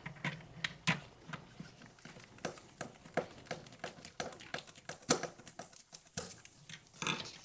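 Irregular light clicks and taps from a hand screwdriver turning small screws into a plastic light housing on a chrome grill panel, with the panel knocking lightly against the bench.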